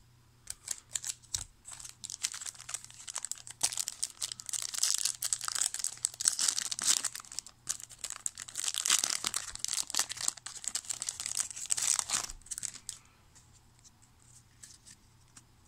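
Foil wrapper of a 1996 Donruss football card pack crinkling and tearing as it is ripped open, a dense run of crackles for about twelve seconds. It gives way to a few faint clicks as the cards are handled near the end.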